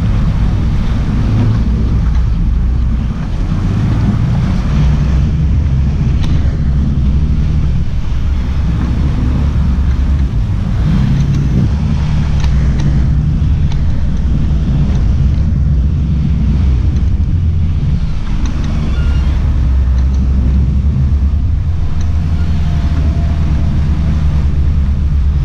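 Sport-fishing boat's engines running with a steady low drone, with wind buffeting the microphone and the wake rushing alongside.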